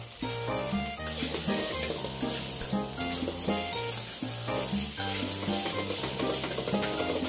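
Fried rice sizzling in a hot wok while a metal spatula stirs and tosses it. The sizzle grows louder about a second in. Background music plays underneath.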